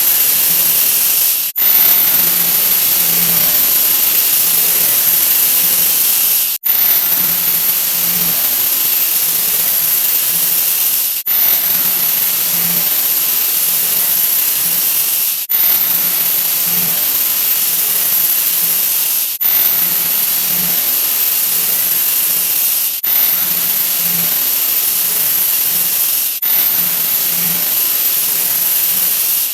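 A digitally sped-up 'wah wah' sound effect, played so fast that it has turned into a steady hiss, loudest in the highs. It cuts out briefly every few seconds, the breaks coming a little closer together each time as the speed keeps rising.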